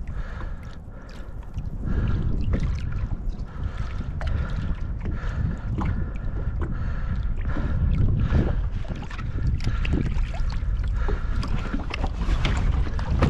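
Lake water sloshing and splashing at the side of a small boat as a muskellunge is held by the jaw in the water, with wind rumbling on the microphone.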